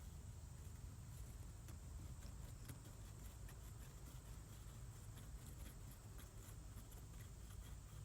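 Near silence: a faint steady low rumble with a few faint scattered clicks.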